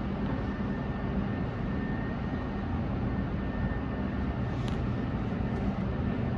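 Steady low rumble and hiss of an underground metro station and tunnel, with a faint even hum, holding level throughout and not building up.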